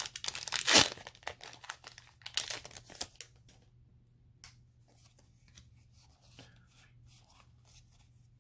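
Foil booster pack wrapper being torn open and crinkled, with loud crackling in the first three seconds, then only faint rustling as the cards are handled.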